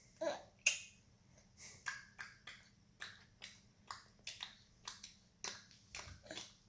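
A baby's tongue clicks, repeated over and over at about two or three a second.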